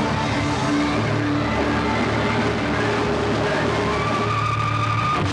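Live rock band playing, with distorted electric guitars holding loud sustained notes; a higher held note rises in pitch about four seconds in.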